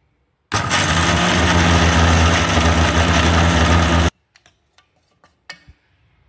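Electric mixer grinder's motor running at full speed with a steady hum, dry-grinding a coarse spice-and-nut masala in its stainless-steel jar, then cutting off sharply. A few sharp clicks and knocks follow as the jar's lid is handled.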